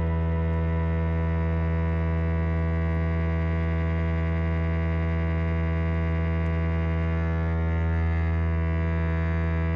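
Steady, sustained instrumental drone from a live band: one low held note with a dense stack of overtones, unchanging, with faint higher tones coming in near the end.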